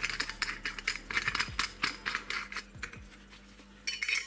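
Quick metallic clicks and light clinks of steel washers and a nut being handled and spun onto a bolt through a 2 mm sheet-steel brake disc, several a second, thinning out after about three seconds, with a short flurry of clinks near the end.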